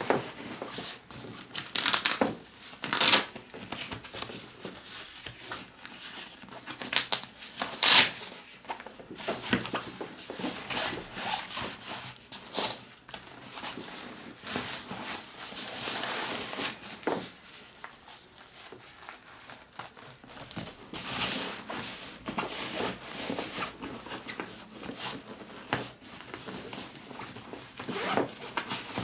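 A new Vanguard Up-Rise 28 bag being unpacked and handled: irregular rubbing, rustling and scraping, with a few louder sharp noises about 2, 3 and 8 seconds in.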